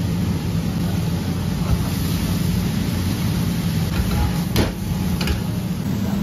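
A metal ladle tossing vegetables in an iron wok, striking the pan sharply twice a little past halfway, over a steady low roar.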